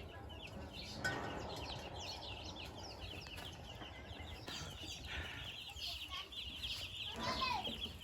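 A flock of young broiler chicks peeping continuously, many short high-pitched cheeps overlapping, with one louder, lower call about seven seconds in.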